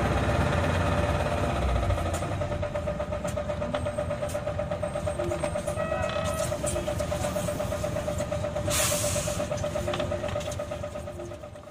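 Isuzu Erga city bus heard from inside: the engine's low rumble dies away about two seconds in, leaving a steady pulsing tone. There is a brief chime about six seconds in and a short burst of air hiss near nine seconds, and the sound fades out at the end.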